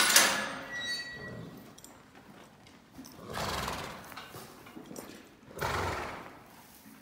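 Tennessee Walker horse neighing once, loud, at the start, the call falling away over about a second; two shorter noisy sounds follow, about three and a half and six seconds in.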